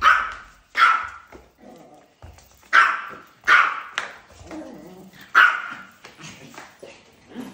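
Small terrier barking in sharp, high yaps: about five loud barks at uneven intervals, with fainter barks in between.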